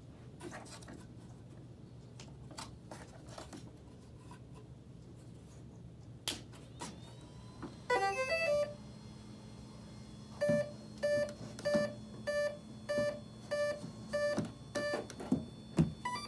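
An electric RC plane's speed controller sounds its startup tones through the brushless motor as the flight battery is plugged in. A few handling clicks come first, then a quick rising run of beeps, then a series of about eight short beeps a little over half a second apart.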